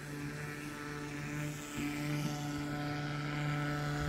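A motor running steadily at one constant low pitch, a smooth mechanical drone.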